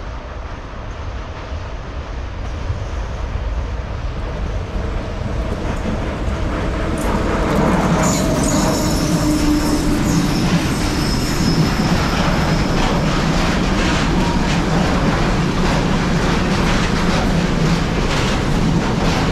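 A train drawing near, growing louder over the first several seconds, then running past loud and steady. Its wheels click over the rails and give a high squeal from about eight to eleven seconds in.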